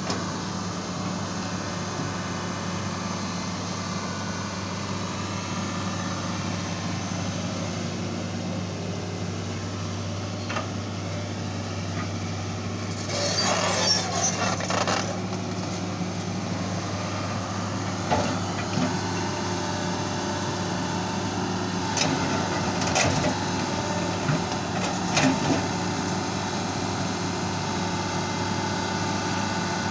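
Crawler excavator's diesel engine running steadily with a low hum. About halfway through come a couple of seconds of crackling, and several sharp cracks follow later, as the excavator's arm pushes through tree branches and brush.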